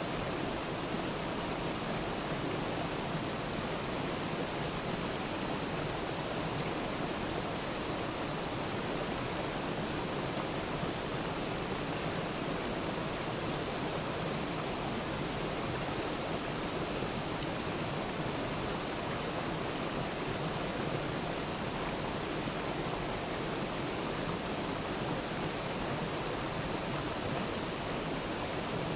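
Waterfall: water falling and splashing in a steady rush that does not change.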